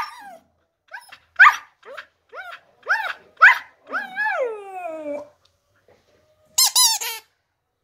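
A dog vocalizing in a run of short, pitched yips that rise and fall, about two a second, then one longer falling howl-like call about four seconds in, a short pause, and a few high yelps near the end.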